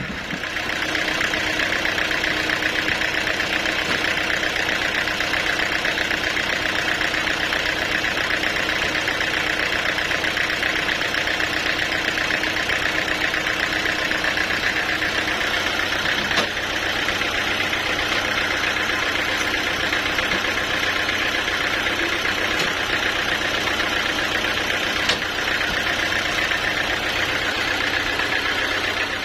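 Machinery running steadily, an even mechanical drone with a low hum underneath, broken only by a single click about sixteen seconds in.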